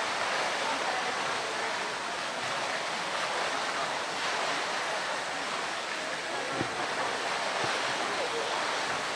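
Steady rushing and churning of water pouring into a polar bear's pool.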